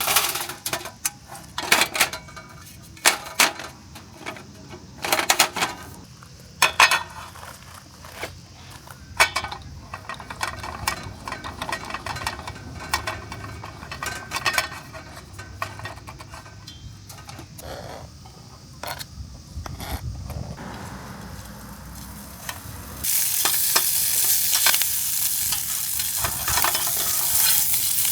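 Cooking utensils clicking and knocking against cookware, then about three quarters of the way in a loud, steady sizzle starts suddenly, as food hits a hot pan and begins to fry.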